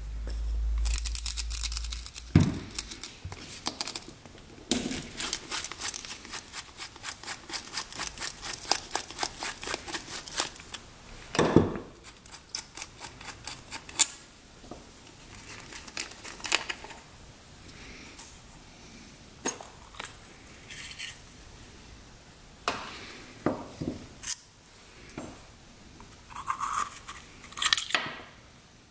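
Screwdriver backing out the small screws of an ATV carburetor's diaphragm cover: a fast, even run of clicks, about five a second, for several seconds. Scattered light taps and clicks follow as the screws and cover are handled and set down.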